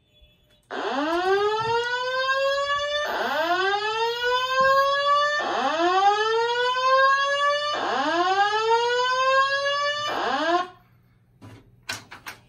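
Simplex 4100ES voice evacuation system sounding its whoop alert tone through its speakers: four slow rising sweeps, each a little over two seconds. A fifth sweep is cut off short when the alarm is silenced at the panel, and a few faint clicks follow near the end.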